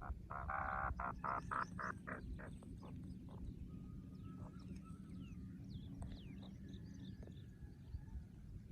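A grey francolin calling: a long harsh note, then a quick run of repeated notes that die away after about three seconds. Faint chirps of small birds follow over a steady low rumble.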